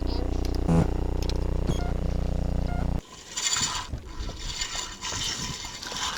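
A steady mechanical buzzing drone with fine rapid ticking, which cuts off abruptly about three seconds in, followed by uneven hissing and rustling.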